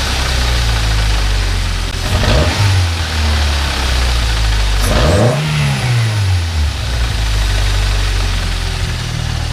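Turbocharged Nissan GA16DE 1.6-litre four-cylinder engine idling on its first start after the turbo install, blipped briefly about two seconds in and revved harder around five seconds in, the pitch rising and falling back to idle.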